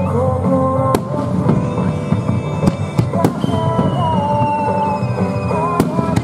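Aerial firework shells bursting with several sharp bangs, the loudest about a second in and near the end, over music with a held melody.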